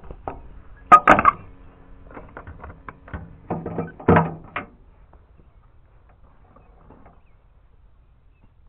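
Loud knocks and clattering thumps, the loudest about a second in and another group around four seconds in.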